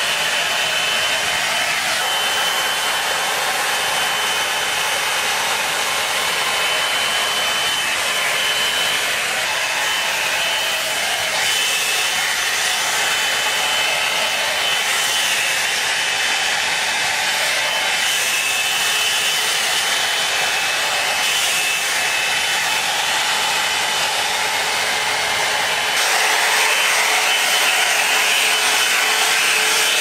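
Drybar Double Shot oval blow-dryer brush running steadily, a rush of hot air with a thin steady high whine from its motor. It grows a little louder near the end.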